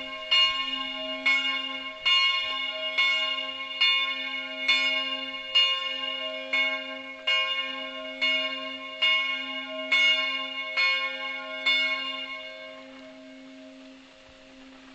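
Swinging church bell with a strike note of c'', its clapper striking a little more than once a second for the evening ringing. The strikes stop about twelve seconds in, and the bell then hums on as it dies away.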